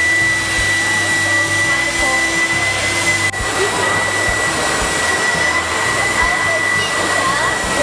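Build-A-Bear stuffing machine's blower running steadily, blowing fluff through its metal tube into a plush cat, with a steady high whine over the rush of air.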